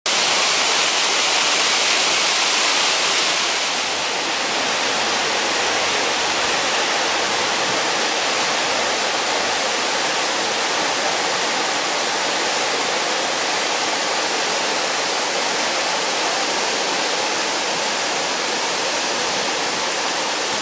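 Artificial waterfall, a sheet of water pouring off a ledge into a pool: a steady rush of falling water. It is loudest and brightest for the first few seconds, then settles into a slightly softer steady rush.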